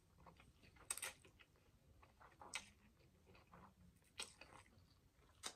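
Faint chewing of spaghetti close to the microphone, with a few brief sharp mouth noises spaced a second or more apart.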